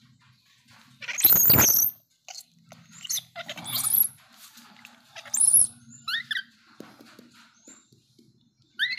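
Baby macaque crying out in a series of shrill squeals and screeches, the loudest and longest about a second in, followed by shorter cries and a few quick chirps that slide in pitch.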